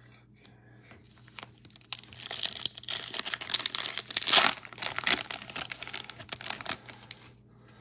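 Foil wrapper of a trading-card pack being crinkled and torn open, a dense crackle that builds after a second or so and is loudest about halfway through.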